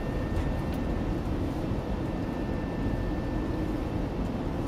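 Steady cabin noise on an Airbus A380 flight deck: an even hum and rush of the aircraft's engines and air systems, with a faint steady whine on top.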